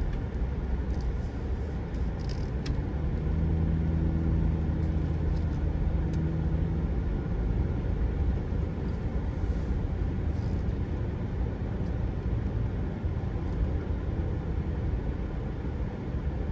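A vehicle driving slowly, heard from inside the cab: a steady low engine and road rumble with an engine hum that stands out most a few seconds in.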